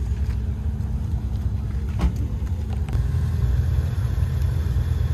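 Car engine idling with a steady low rumble, and a short click about two seconds in.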